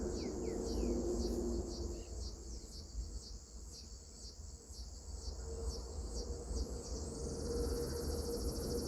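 Insects chirring in a high, rapidly pulsing chorus, with a few short falling bird chirps about half a second in; about seven seconds in a second, higher and steadier insect drone takes over.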